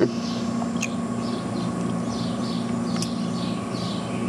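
Outdoor ambience: an animal calling in a steady run of high, falling chirps about twice a second, over a constant low hum.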